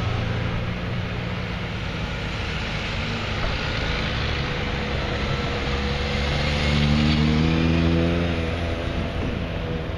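Big motor scooters and a motorcycle riding past one after another, engines running, with a car going by as well. An engine rises in pitch and the sound is loudest about seven seconds in.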